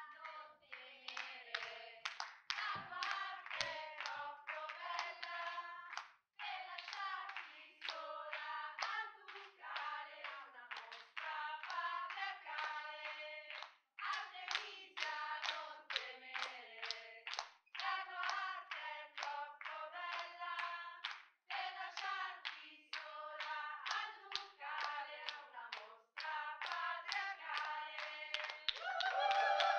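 A group of voices singing or chanting together while hands clap a steady beat, in phrases a few seconds long with short breaks between them.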